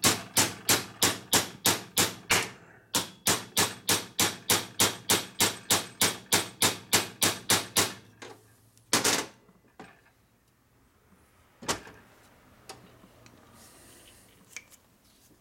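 A small hammer tapping steadily, about three blows a second, on a part being driven down over the mainshaft of a Harley-Davidson 4-speed transmission case. There is a short pause, then the tapping resumes and stops about eight seconds in. A louder clunk follows about a second later, and a single knock comes a few seconds after that.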